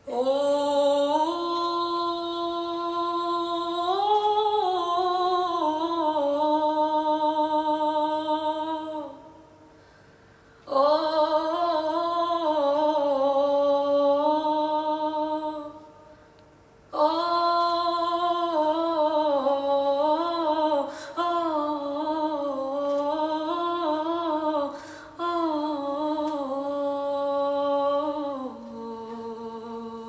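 Female vocal music: a woman's voice singing long, slow held notes with vibrato and no words, in three phrases separated by short pauses, dropping softer and lower near the end.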